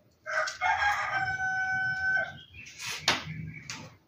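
A rooster crowing once, a long held call of about two seconds, followed by a sharp knock about three seconds in.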